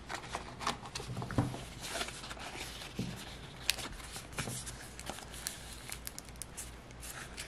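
Clear plastic pocket pages of a mini card binder rustling and crinkling as a trading card is slid into a pocket and the pages are handled, with scattered light taps and clicks.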